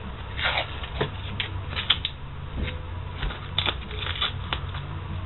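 Blue painter's tape being peeled off a sledgehammer's wooden handle and crumpled: a run of irregular crinkling, tearing rustles with small clicks.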